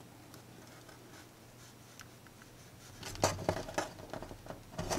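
Small clicks and scrapes of hands working a joint between two pieces of N scale track, the metal rails and rail joiner clicking as the joint is flexed to test it: the solder has not taken. Quiet with a faint low hum at first, then a run of sharp little clicks from about three seconds in.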